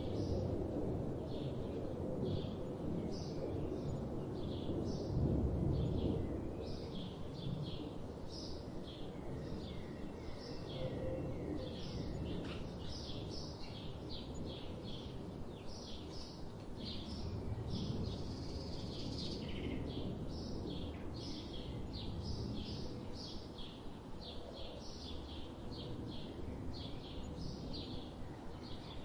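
Budgerigars chirping and chattering in quick, short calls throughout, over a steady low background rumble.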